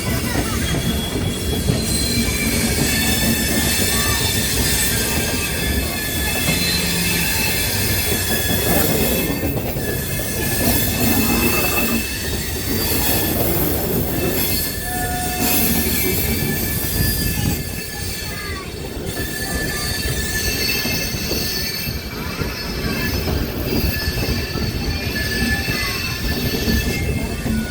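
Indian Railways passenger express rolling slowly into a station, its wheels squealing in long high tones over a steady rumble and clatter of the coaches.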